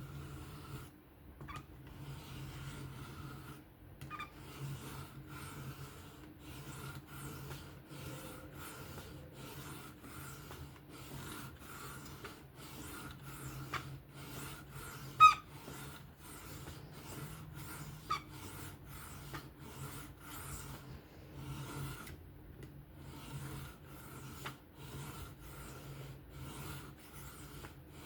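Knife blade stroked freehand across a 600-grit diamond sharpening plate: a steady run of short rasping strokes, about two a second. About fifteen seconds in there is one sharp metallic clink, and a smaller one a few seconds later.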